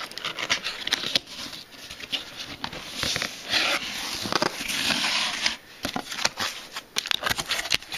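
Cardboard box being opened and its packing material handled: rustling, scraping and crinkling with scattered clicks, loudest in the middle few seconds.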